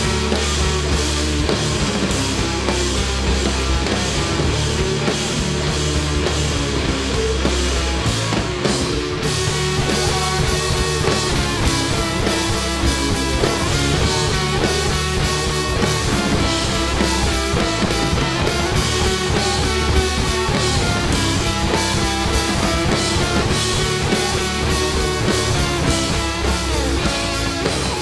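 Rock band playing live without vocals: electric guitars, electric bass and two drum kits. The sound fills out in the upper range about nine seconds in.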